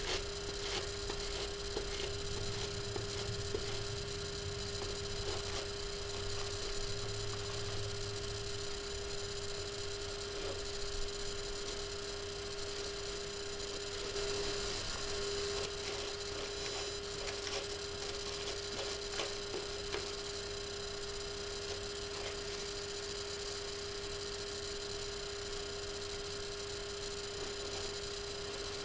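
Steady electrical hum: one constant mid-pitched tone and a few fainter higher whines over an even hiss.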